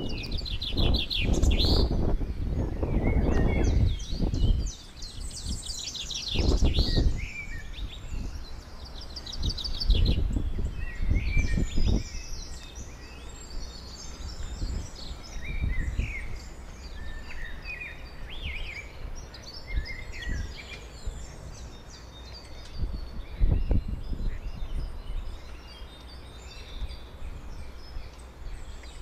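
Small songbirds chirping and trilling, with gusts of wind buffeting the microphone at times, loudest near the start.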